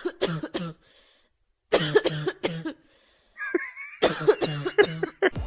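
Coughing in three quick bouts of short coughs, with a brief high whine between the second and third bouts.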